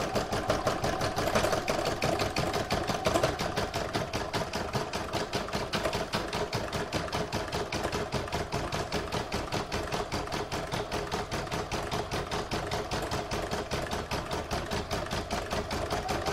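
Brother Innov-is computerised embroidery machine stitching out a design: fast, even needle strokes over a steady motor hum.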